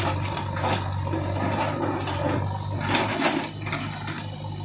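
A JCB backhoe loader's diesel engine runs with a steady hum, while stones knock and grind against each other as the front bucket pushes into the boulder pile. The clatters come a few times, loudest about three seconds in.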